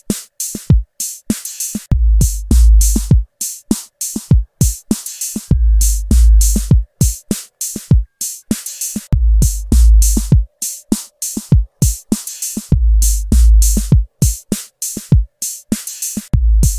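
Background music: an electronic drum-machine beat of sharp hits, with a deep bass note coming back every three to four seconds.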